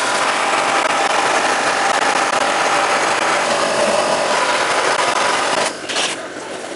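Wet-blasting gun spraying abrasive slurry onto a TZR250R engine cylinder: a loud, steady hiss that cuts off about five and a half seconds in, followed by one short blast about a second later.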